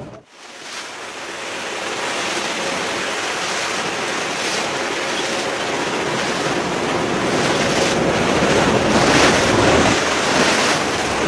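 Rushing of open sea water and waves, a steady even noise that builds in loudness over the first couple of seconds and grows louder again later on.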